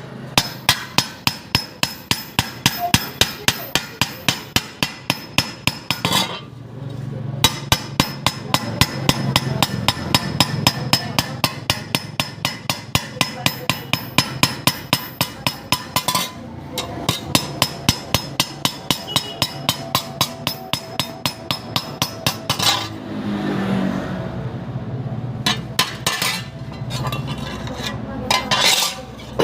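Hammer striking metal in a fast, steady rhythm of about three blows a second, each blow ringing. The hammering stops briefly a few times and then resumes.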